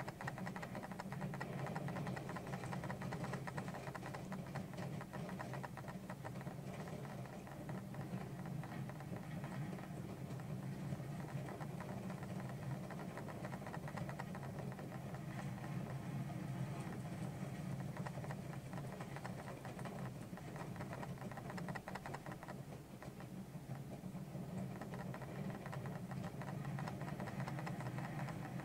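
Roller coaster train running along its track: a steady low rumble with fast, dense clattering.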